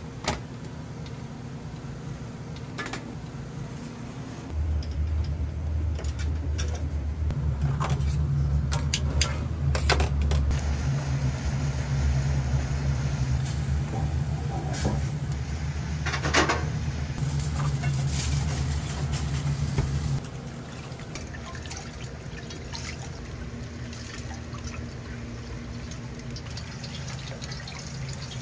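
Water running steadily into a vessel, as from a tap filling a pot or sink. It starts about four seconds in and stops abruptly around twenty seconds in, with a few light clicks along the way.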